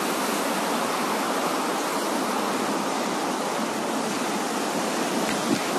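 Steady, even rush of fast-flowing floodwater.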